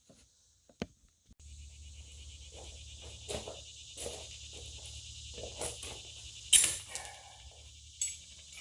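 Scattered metal clanks and knocks from handling the steel parts of a compact tractor's 3-point quick hitch, the loudest about two-thirds through. Behind them, a steady low hum and a high buzzing start together a little over a second in.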